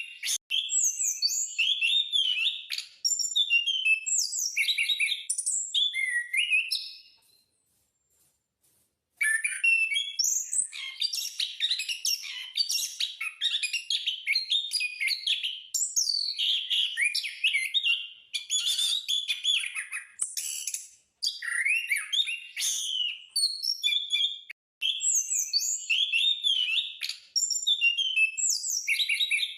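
Caged anis (Geokichla ground thrush) in full, continuous song: rapid, varied warbling phrases of sweeping notes, with one pause of about two seconds a third of the way through.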